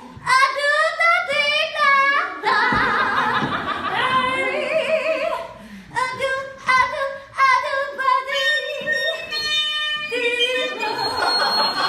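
Female voice scat singing a cappella: short wordless phrases with wavering, sliding pitch and vibrato, and a steadier held note about two-thirds of the way through.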